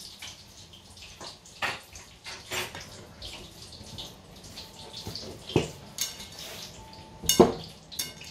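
Hands mixing and squeezing a moist, crumbly griwech pastry dough in a glass bowl: soft wet squishing and rustling, with a few sharper knocks of hands against the bowl. The loudest knock comes near the end.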